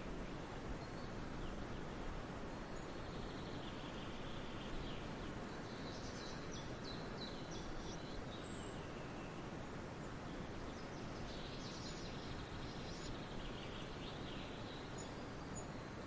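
Forest ambience: a steady background hiss with birds chirping and trilling now and then, in two busier spells about six and eleven seconds in.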